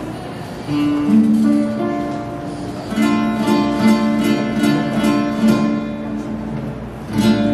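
Instrumental music with a strummed guitar: held chords, with steady strokes from about three seconds in.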